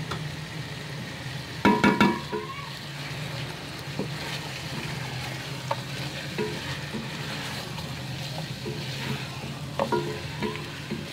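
Wooden spoon stirring chicken pieces and fried onions sizzling in a metal pot, with a steady frying hiss. The spoon knocks against the pot, loudest about two seconds in and again near the end. This is the chicken being sautéed (bhunai) in ginger-garlic paste with the fried onions for the korma.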